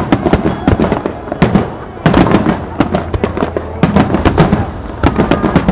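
Fireworks going off: many sharp bangs and cracks in quick, irregular clusters over a low rumble.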